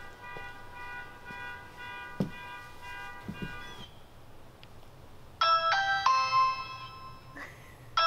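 Ring video doorbell chime after the button is pressed: a loud electronic melody of several stepped notes about five and a half seconds in, starting again right at the end. Before it, soft sustained music chords with a couple of low thumps.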